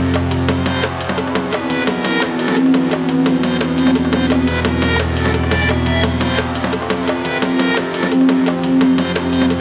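Drum and bass music: fast, busy drums over a deep, sustained bass line that swells and fades, thinning out briefly about a second and a half in and again near the end.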